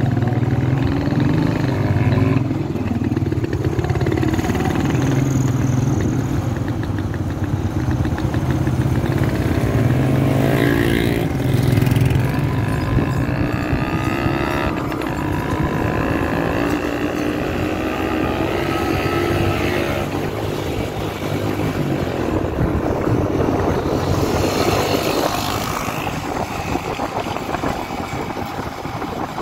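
Motorcycle engine running steadily while riding, its pitch rising and falling with the throttle, with road noise underneath.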